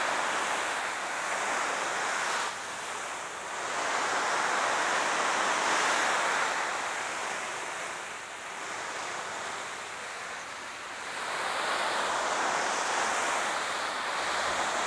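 A garden hose spray nozzle spraying water onto the flysheet of a Black Deer Archeos 2 dome tent. The hiss of the spray on the fabric swells and eases several times as the jet is swept over the tent. This is a simulated rain test of the flysheet's seams and zipper.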